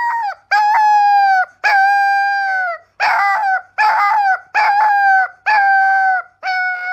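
Husky-type puppy howling in a series of short howls, about one a second. Each howl holds a steady pitch and drops at its end.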